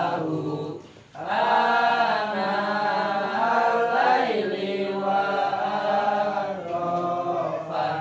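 Chanting voice in long, drawn-out, wavering melodic lines, breaking off briefly for a breath about a second in.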